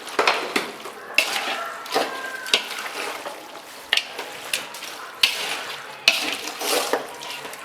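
A ladle stirring chicken and masala in a large pot, scraping the pot in repeated strokes about once a second, over a steady sizzle of the frying masala.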